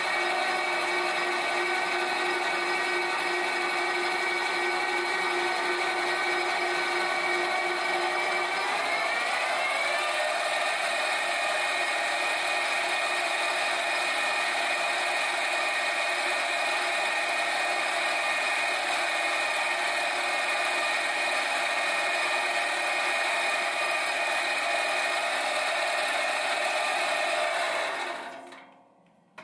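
Metal lathe running steadily with a multi-toned gear and motor whine while a drill in the tailstock chuck bores into a phosphor bronze bar. The whine rises in pitch about nine seconds in, then holds steady until the sound fades away near the end.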